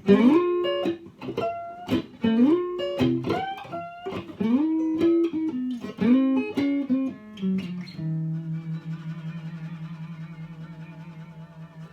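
Isana archtop electric guitar played through a Tone King Gremlin amp: an improvised single-note line with bends, many notes gliding up into pitch. About two-thirds in it settles on one held low note that rings on with a wavering vibrato and slowly fades.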